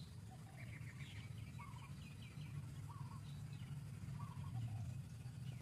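Birds chirping in the background: short chirps repeating every second or so, with a few lower two-note calls, over a steady low hum.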